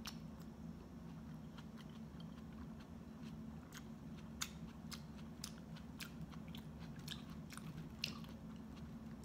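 A person chewing a peeled lychee close to the microphone: faint, irregular mouth clicks and smacks, over a steady low hum.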